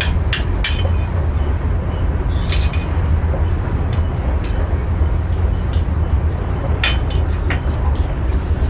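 Scattered sharp metallic clinks and taps of steel rebar and tools being handled while the rebar is bent into a trowel handle, over a steady low rumble.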